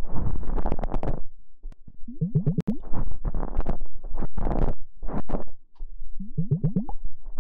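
ASMR ear massage: hands rubbing and squeezing against the microphone in repeated strokes about a second long, each with a rising squeak, and one sharp click about two and a half seconds in.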